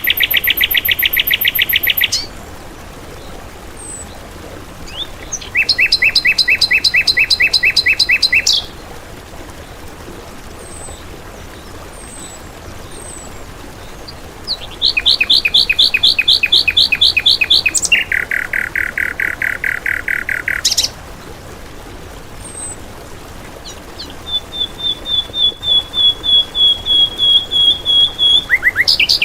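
Songbird song from a masteran (song-training) recording: bursts of rapid repeated notes, about ten a second, each burst two to three seconds long and at a different pitch, separated by pauses with a few single chirps. Near the end a thinner, higher trill runs for about four seconds.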